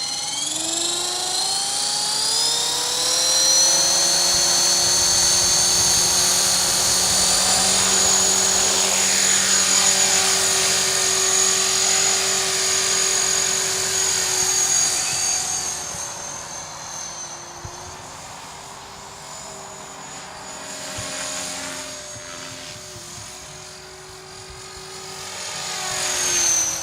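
Copter X 450 RC helicopter in flight: a high motor and rotor whine that rises in pitch at the start and holds loud and steady, fades about sixteen seconds in as the heli moves away, then swells again near the end as it passes close, dropping in pitch.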